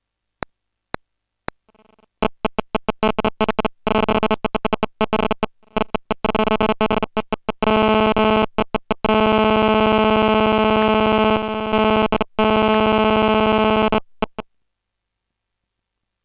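Harsh electronic buzzing, like a digital audio glitch: a few sharp clicks, then a buzz that stutters rapidly on and off, runs steadily for several seconds and cuts off suddenly near the end.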